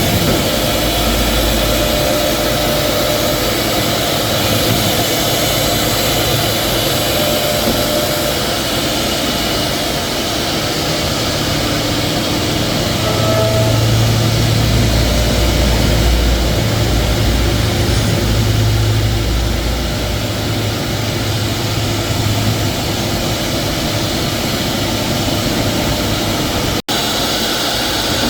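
Four-spindle CNC router milling 3D panel patterns into edge-glued wood board: a loud, steady whirring machine noise that grows heavier and deeper for several seconds midway.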